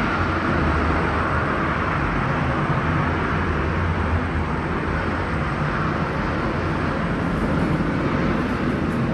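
Steady low rumble with a hiss of jet aircraft noise, heard from behind a window.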